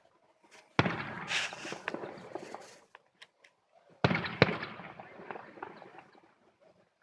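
Aerial fireworks bursting: two loud bangs about three seconds apart, the second followed closely by another sharp crack. Each is followed by a crackling tail that fades over a couple of seconds.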